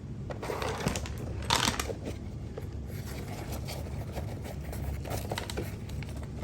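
Light rustling and scraping of a mouse enclosure and its bedding being handled, with a louder rustle about a second and a half in.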